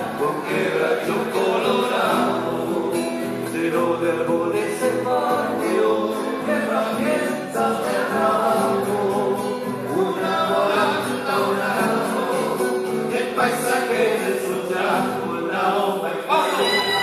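Men singing a song together to a strummed acoustic guitar.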